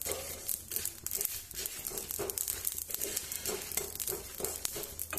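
Whole spices (coriander, fenugreek, cumin and black mustard seeds with dried red chillies) crackling and popping as they dry-roast in a nonstick pan, with many small sharp pops. A wooden spatula stirs through them continuously. The crackling is the sign that the spices are roasted and giving off their aroma.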